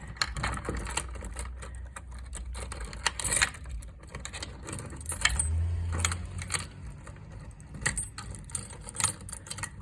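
Clicks, taps and rattles of the Detex EAX-500 exit alarm's cover being handled and refitted, with a key jangling, one sharp click about three seconds in standing out.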